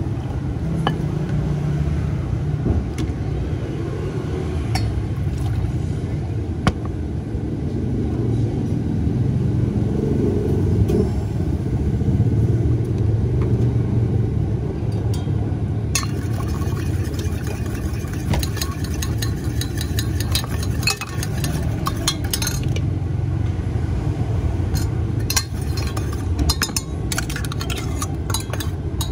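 Metal spoon clinking against a stainless steel cup as drink ingredients are stirred, the clinks coming thick and fast through the second half, over a steady low rumble.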